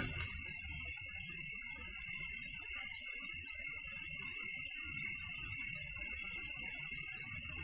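Quiet, steady background bed: an even, high insect-like chirring over a low, unsteady rumble.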